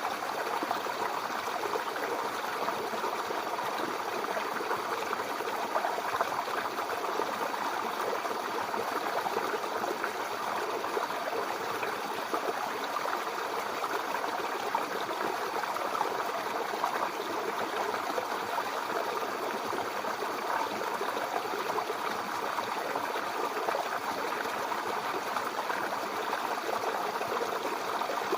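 Mountain river flowing over rocks: a steady, even rush of water.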